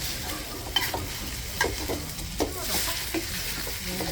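Food stir-frying in hot oil in a pan: a steady sizzle, with a utensil stirring and striking the pan in a few sharp clacks.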